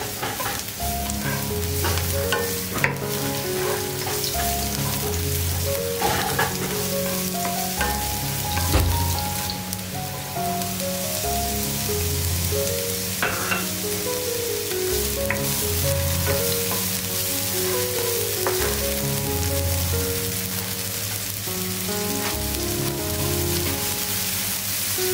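Chopped onion sizzling in hot oil in a nonstick frying pan, with a spatula stirring and scraping and diced red and green capsicum tipped in, a few sharp clicks among the hiss. Soft background music plays underneath.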